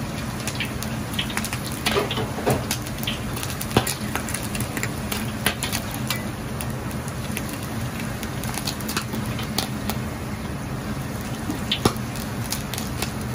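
Hot oil ladled over a slab of braised pork belly held on a perforated skimmer above a wok, sizzling and crackling with frequent sharp pops. A steady low hum runs beneath.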